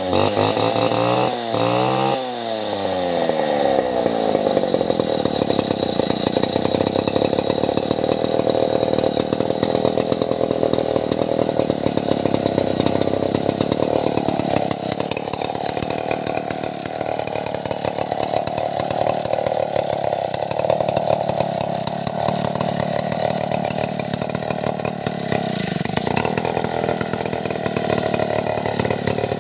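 Chainsaw engine revving down and up a couple of times, then held at full throttle cutting into an albasia (sengon) tree, its pitch dipping and wavering under load midway.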